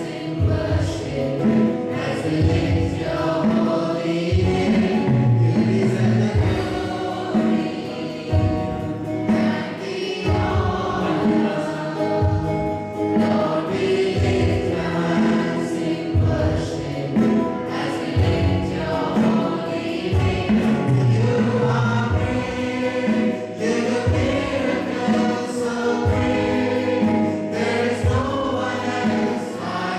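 Choir singing a Christian worship song with instrumental accompaniment and a steady beat.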